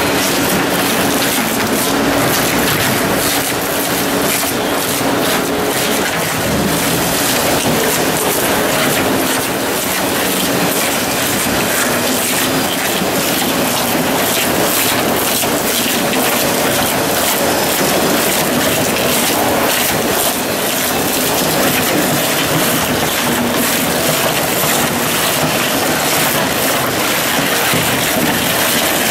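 Genox shredder's hooked cutter shafts gripping and tearing a car tyre: a loud, steady grinding din broken by frequent sharp cracks, with a faint drive hum underneath in the first half.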